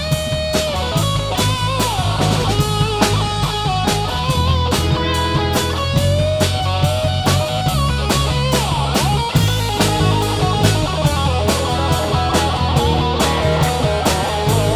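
Live rock band playing an instrumental passage: electric guitar playing a lead line with bent notes over bass guitar, and a drum kit keeping a steady beat.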